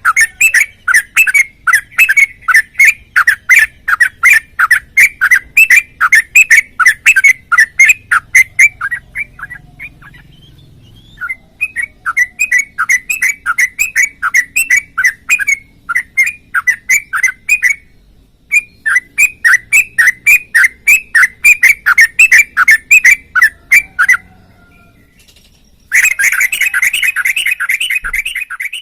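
Yellow-vented bulbul (trucukan) calling in long runs of rapid, repeated chirps, about four or five a second, broken by a few short pauses. Near the end a denser, louder run of chirping starts and then cuts off suddenly.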